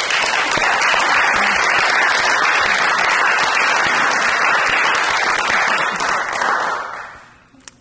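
Applause, dense as from a whole crowd, holding steady and then fading out about a second before the end.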